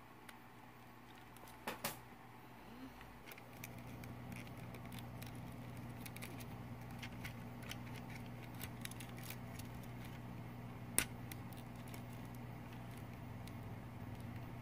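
Light clicks and rattles of plastic robot-kit parts being handled and snapped together, with a sharper single click about eleven seconds in. A steady low hum comes in after a few seconds and runs under the clicks.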